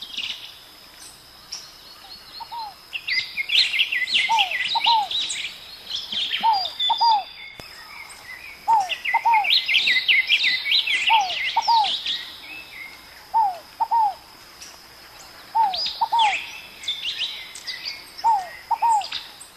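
Several birds singing together: bursts of rapid, high twittering chirps over a lower call of two short falling notes that repeats about every two seconds. A faint steady high tone runs underneath.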